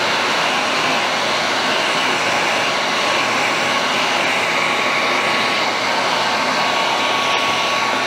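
Electric heat gun running steadily, its fan blowing hot air with a faint steady whine, heating a plastic sole protector so it softens onto a sneaker's sole.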